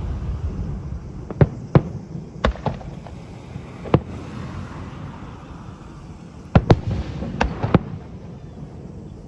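Aerial fireworks shells bursting in sharp, irregular bangs, about nine of them, several coming in quick pairs, over a steady low rumble.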